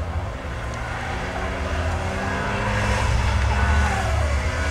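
Race car engines running at a distance, revving as the cars move around the dirt track. Their pitch climbs over the first few seconds and drops near the end, over a steady low rumble.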